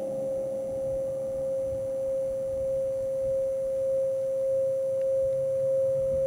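A single steady, pure mid-pitched tone, held without a break and swelling slightly in loudness.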